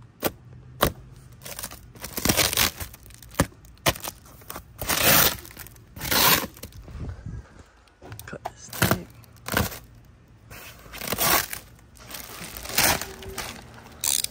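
Plastic wrap and foam packing sheets being cut with a utility knife and pulled apart. The sound is irregular crinkling, rustling and tearing, with a few sharp clicks in between.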